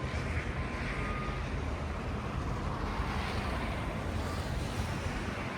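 Steady outdoor rumble of road traffic with wind noise, swelling about three seconds in as a vehicle seems to pass.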